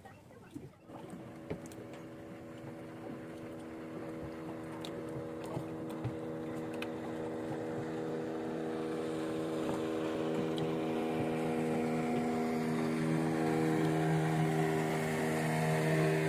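A motorboat engine on the river, drawing nearer: a steady engine tone that starts about a second in and grows steadily louder without changing pitch. A few faint clicks come early on.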